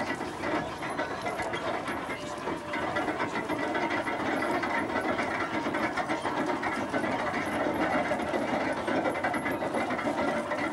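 Horse-powered threshing rig running: a horse gear turned by a pair of horses walking in a circle drives a tumbling shaft to a threshing machine, giving a steady clattering, whirring mechanical noise with many small rapid clicks from the gearing.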